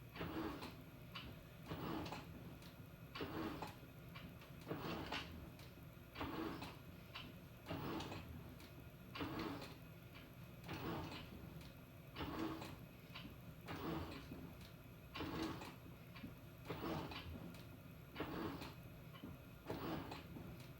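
Panasonic NA-FA100H9 top-loading washing machine agitating: the pulsator turns one way then the other, churning the laundry with a regular swish about every second and a half over a low motor hum.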